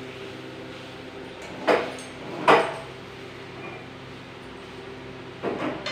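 Three short knocks or clatters, about a second in, a second later, and near the end, over a steady low hum.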